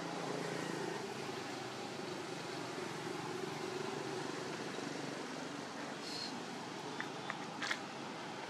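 Steady outdoor background noise with a faint low hum, broken by a short high chirp about six seconds in and a few sharp clicks near the end.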